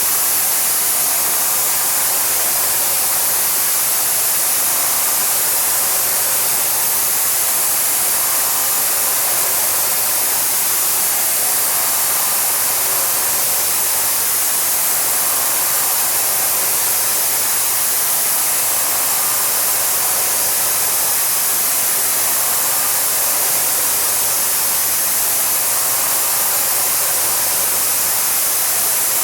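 A steady, even hiss, brightest in the high range, with no change in level.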